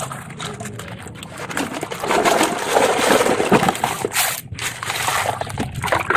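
Water sloshing and splashing with small plastic knocks, as toy vehicles are handled in water; louder from about two seconds in.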